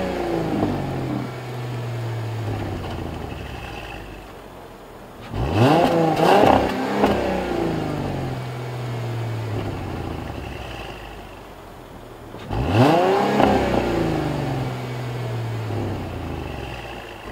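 2013 Mercedes-Benz E300 4Matic's V6 engine revved twice from idle. Each time the revs climb quickly, then sink slowly back to a quiet idle.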